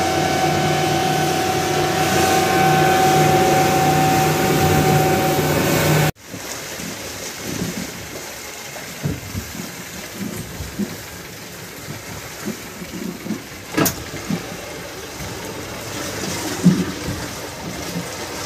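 Fishing boat engine running at speed, a steady drone with rushing wake water and wind. About six seconds in, the sound cuts to a much quieter scene of irregular low knocks and water sounds, with one sharp click a little after the middle.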